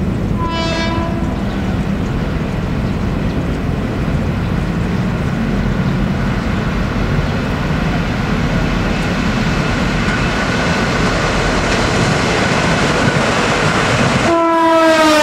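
KRL commuter electric train approaching on the rails: a short horn blast just after the start, then a steady rumbling rush of the oncoming train, and a second horn blast near the end that begins to drop in pitch as the train draws close.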